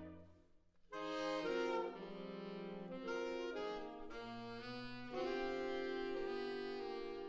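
Saxophone quartet of alto, two tenors and baritone saxophone playing sustained chords together. The sound dies away into a short pause right at the start, and the players come back in together about a second in, moving through several chord changes.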